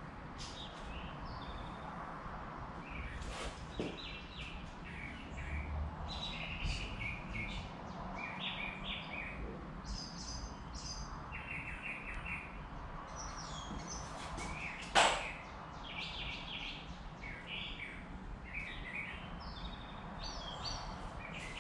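Small birds chirping and calling over and over, with one sharp knock about two-thirds of the way through.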